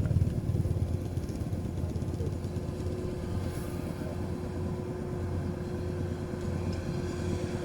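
Engine running steadily with a low, pulsing rumble and a steady hum; it eases off over the first second, then holds at a constant level.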